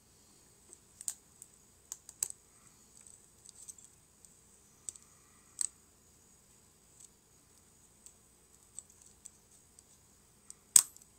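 Irregular small clicks and snaps of thin 3D-printed support struts being cut and broken away from a miniature printed part, with one sharper snap near the end.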